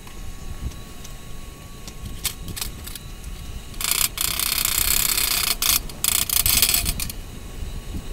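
A few sharp taps, then about three seconds of loud, scratchy scraping with short breaks, as slag is chipped and scraped off a freshly laid stick weld (6013 rod) with a chipping hammer.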